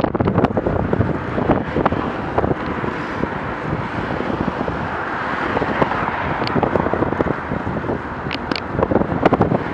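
Wind rushing over a moving camera's microphone, mixed with the sound of car traffic on the road, with scattered short knocks and rattles, more of them near the end.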